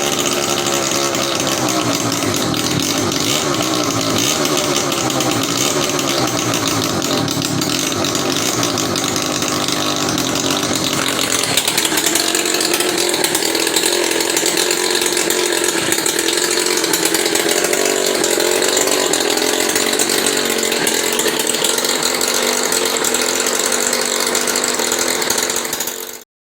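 110cc reed-case two-stroke motorized-bicycle engine running with its air filter off, its speed wandering up and down at first, then holding a steadier, higher pitch from about halfway on. The sound cuts off abruptly just before the end.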